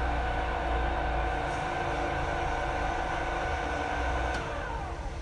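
Ibarmia B-35 pillar drill running with a steady whine from its motor and spindle drive. It is switched off with a click about four seconds in, and the whine falls in pitch as the spindle coasts down.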